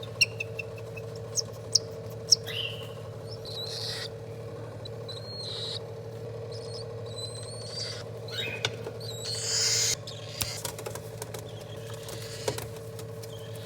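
A pet parrot making short chirps, squeaks and a few rising whistles, with some sharp clicks near the start and a louder scratchy squawk about two thirds of the way through, over a steady background hum.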